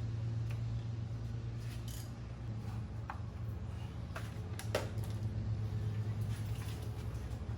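Scattered light metallic clinks and clicks of hand tools at work on the engine as the 8 mm bolt of the oil feed line is undone, with one sharper click near the middle, over a steady low hum.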